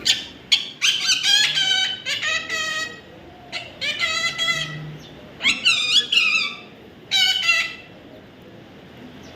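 Baby parrot calling in about five bursts of high-pitched, squeaky chatter, each lasting about half a second to a second, with short pauses between.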